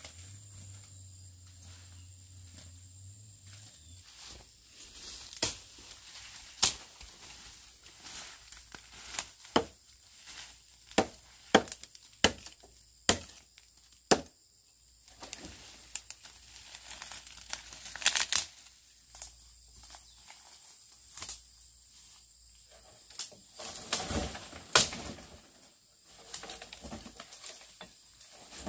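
Dry twigs and branches snapping and rustling as they are broken and handled, in irregular sharp cracks with most of the loud ones bunched in the middle.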